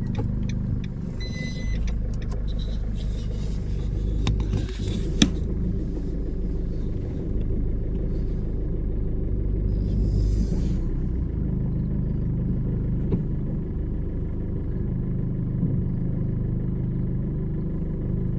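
Car engine running steadily with a low rumble, heard from inside the car's cabin, with a single sharp click about five seconds in.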